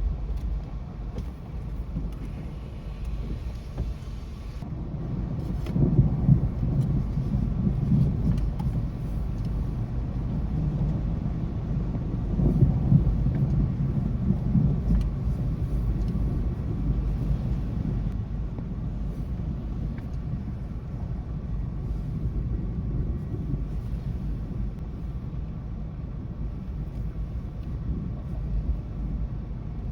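Thunder rolling: a low, steady rumble that swells twice, about six seconds in and again about twelve seconds in, then settles back.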